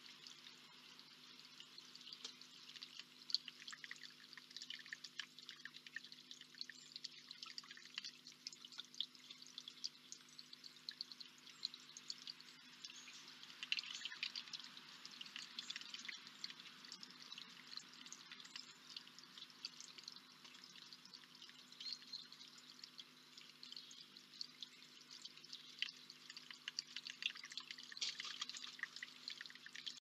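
Water from a small stone cascade trickling and dripping into a basin: a faint, steady patter of many small drips.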